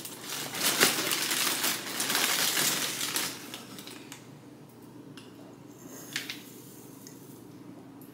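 Dry oats poured from a cardboard box into a glass jar: a dense, rattling hiss of flakes for about three seconds. Then it goes quiet, with a light click about six seconds in.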